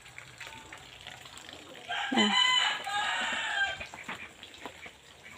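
A rooster crowing once, a single call of nearly two seconds starting about two seconds in.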